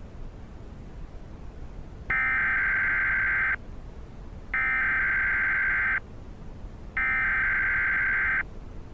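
Emergency Alert System SAME header: three identical bursts of harsh, buzzy digital data tones, each about a second and a half long with a second of faint hiss between them. It is the coded preamble that opens an EAS broadcast.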